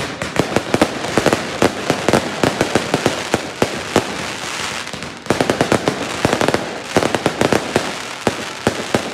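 Fireworks display: a dense, rapid barrage of bangs and crackling from bursting aerial shells, easing slightly about five seconds in before another quick run of bangs.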